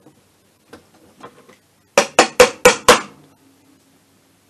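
A hammer tapping on metal: a few faint clicks, then five quick, loud, sharp strikes about two seconds in, each ringing briefly.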